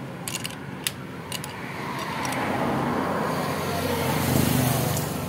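Honda Supra 125 single-cylinder engine idling, with a few light metallic clicks in the first second and a half as a wrench locks the clutch adjuster nut. The engine grows louder toward the end. The clutch is being adjusted to cure a knocking when shifting into gear.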